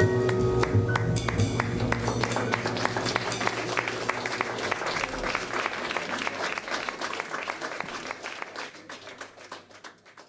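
A small audience applauding as the jazz band's final chord dies away. The clapping fades out near the end.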